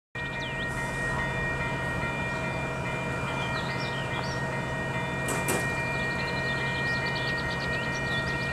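A train approaching in the distance: a steady hum with several held tones, with small birds chirping over it. A brief sharp click about five seconds in.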